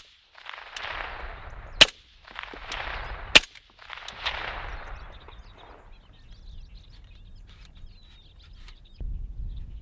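Three shots from a suppressed C39 V2 7.62x39 AK-pattern pistol fired out of a vehicle's window, about a second and a half apart. Each shot is followed by a fainter crack and a rolling echo. A low rumble comes in near the end.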